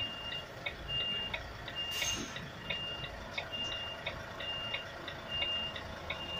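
Articulated lorry's reversing alarm beeping, one short high beep about every second, heard from inside the cab, with sharp ticks between the beeps.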